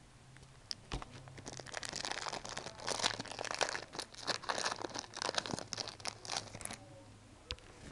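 Foil wrapper of a Yu-Gi-Oh! Shining Darkness booster pack being torn open and crinkled by hand: a dense crackling of wrapper noise that starts about a second and a half in and stops about a second before the end.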